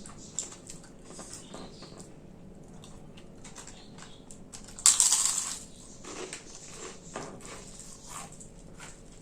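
Close-up eating sounds: soft chewing and mouth clicks, with one loud, crisp crunch about five seconds in as a piece of papad is bitten.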